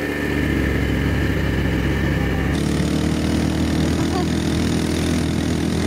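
ATV engine running steadily as the quad bike is ridden, a low even hum, with a hiss added from about two and a half seconds in.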